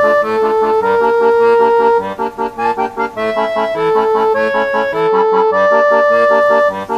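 Background music: an accordion-like reed melody of held notes over a quick rhythmic accompaniment.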